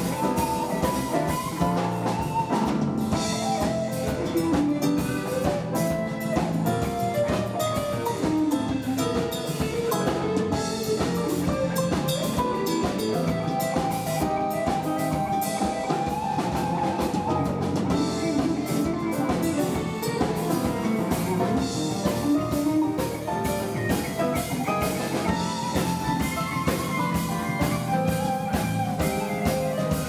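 Live instrumental band: an electric guitar plays quick melodic runs over electric bass and drum kit.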